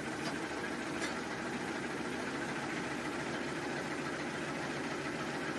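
1/6-fold napkin tissue paper machine running at about 260 metres a minute: a steady, even mechanical running noise, with two faint ticks in the first second.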